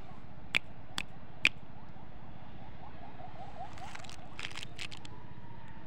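Three sharp clicks about half a second apart, then plastic lollipop wrappers crinkling in short bursts as they are picked up and handled, over a steady background hiss.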